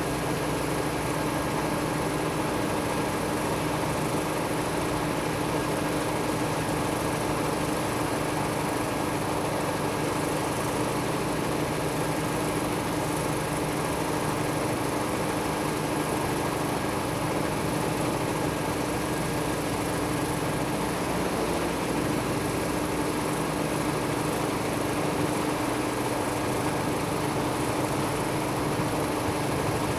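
A steady engine hum, as of a vehicle or machine idling, with a constant low drone and no change in level.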